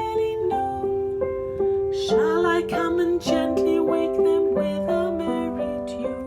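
A children's action song: a gentle instrumental accompaniment of plucked or keyboard-like notes carrying a slow melody, with a voice singing along.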